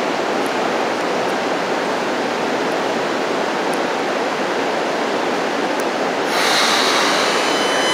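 Steady rushing noise of an electric train standing at an underground station platform, its onboard equipment running. About six seconds in, a louder hiss sets in.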